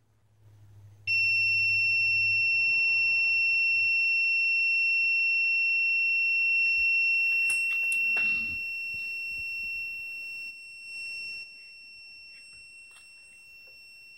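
Carbon pile battery load tester's alarm sounding one steady, high buzzing tone from about a second in, the signal that the 15-second load test time is up. It grows quieter in steps in the second half, with a couple of clicks about eight seconds in.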